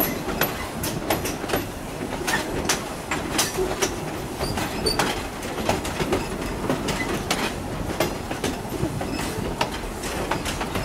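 Railroad car rolling along the track, heard from aboard the moving train: a steady low rumble with frequent irregular clicks and knocks from the wheels over the rails.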